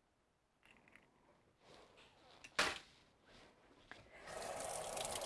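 A few faint handling sounds and one sharp knock about halfway through, then a kitchen sink tap turned on and running steadily near the end while hands are rinsed under it.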